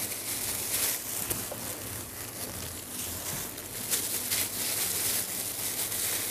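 Soft crackly rustling of a plastic food-service glove and powder as a hand rolls and pats mochi balls through toasted cornstarch, over a low steady hum.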